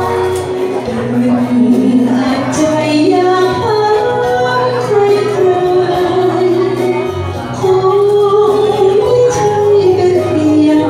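A woman singing a melody with long held notes over backing music.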